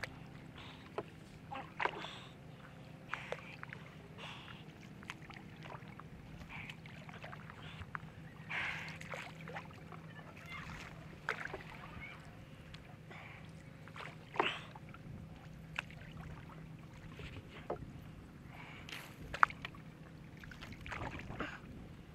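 Small wooden boat being paddled along a still canal: water splashing and dripping from the paddle, with scattered sharp knocks of the wooden paddle against the boat, over a steady low hum.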